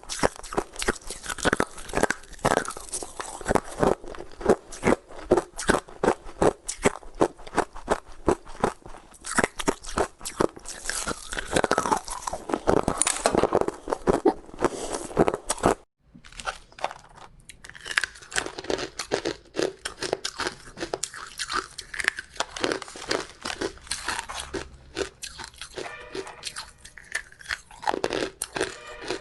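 Ice being bitten and chewed close to the microphone: a dense run of sharp, irregular crunches and cracks, with a brief break about halfway through.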